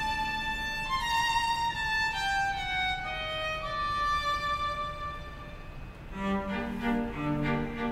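String quartet of two violins, viola and cello playing live: a single high melody line steps downward, then about six seconds in the whole quartet comes in together, the cello sounding beneath.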